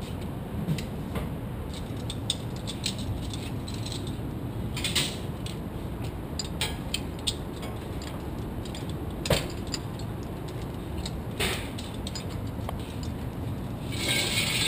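Metal harness hardware and carabiners clicking and rattling now and then over a steady low rumble, with a short burst of hiss near the end.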